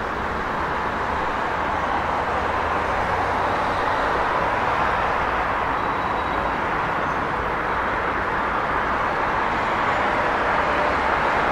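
Busy street traffic noise: a continuous wash of passing cars' engines and tyres, swelling a little as nearer vehicles go by.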